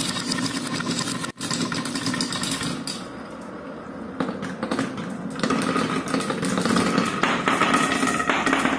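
Many marbles rolling and clattering along a wooden marble-run track and around a wooden spiral bowl. A steady rolling rumble is full of small clicks and knocks, and it grows louder in the second half.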